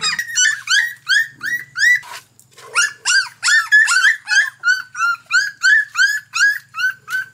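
Dog giving quick, high-pitched yelps over and over, about three a second, with a short break about two seconds in.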